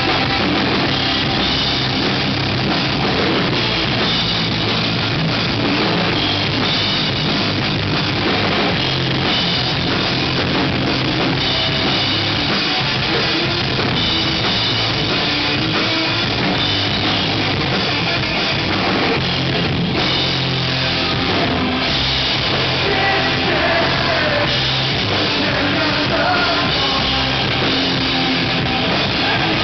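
Live rock band playing loud and steady: two electric guitars, a bass guitar and a drum kit.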